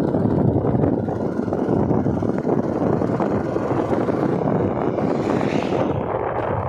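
Wind rushing over the microphone of a moving motorcycle, with engine and road noise under it, and a brief rise in hiss about five seconds in.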